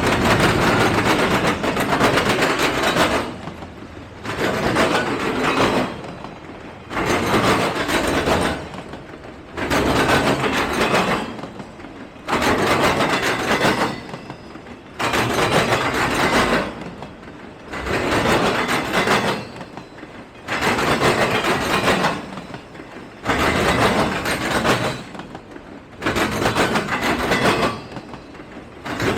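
Railroad cars rolling past on the track. A loud rush of wheel and rail noise rises and dips in an even rhythm, about once every two and a half seconds, with a short lull between pulses.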